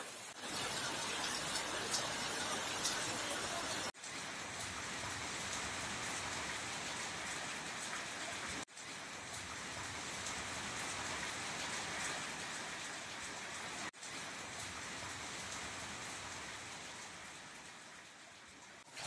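Rain falling onto standing water, a steady hiss of many drops hitting the puddled surface. The sound breaks off for an instant three times and eases a little near the end.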